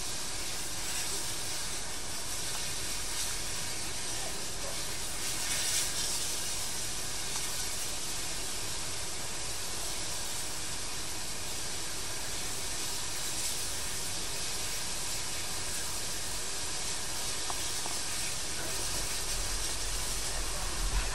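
Danish F class 0-6-0T steam tank locomotive standing with steam up, hissing steadily, with a brief louder swell about six seconds in.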